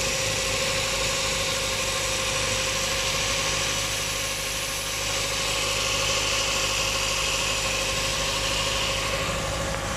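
Toyota 4E-FE inline-four engine idling steadily just after a timing belt job, running with the timing belt cover off so that the new belt, tensioner pulley and water pump pulley turn in the open. A steady whine sits over the running.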